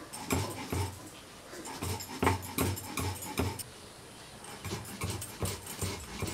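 Stone roller (nora) worked back and forth on a shil grinding stone, crushing dry biscuit to powder: a row of gritty stone-on-stone strokes with low thuds, about two or three a second, with a short pause near the middle.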